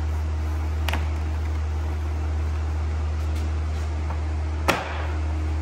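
Steady low hum throughout, with a light click about a second in and a sharper plastic knock near the end as the Jeep Grand Cherokee's door trim panel is handled and pressed onto the door.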